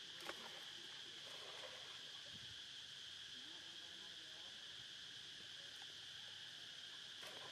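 Faint, steady, high-pitched insect chorus droning without a break, with one brief click about a third of a second in.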